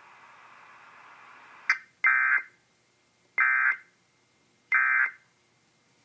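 Emergency Alert System end-of-message signal: three short bursts of SAME digital data tones, each about half a second long and roughly a second and a half apart, after a brief click. It marks the end of the flood warning broadcast and plays through a laptop's speakers.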